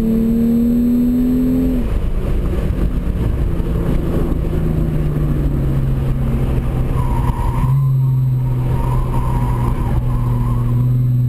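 Genesis Coupe's 3.8-litre V6 heard from inside the cabin, its pitch climbing slightly under throttle, then dropping about two seconds in as the driver comes off the power, and running steadily lower through a corner with a further drop near eight seconds. From about seven seconds in, a faint wavering squeal of the tires rides over the engine as the car turns.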